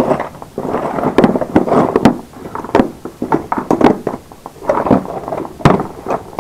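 Pliers and wire cutters clacking against each other as they are handled and lifted from a pile on a workbench. They make an irregular run of sharp metal-and-plastic knocks.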